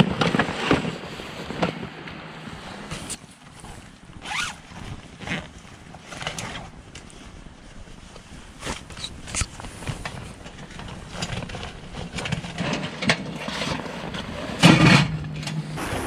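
Nylon gear bags being handled: rustling, short zips and scrapes, with the loudest rasp about a second before the end.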